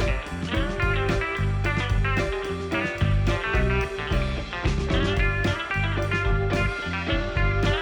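Background music: a guitar-led blues-rock track with a steady beat.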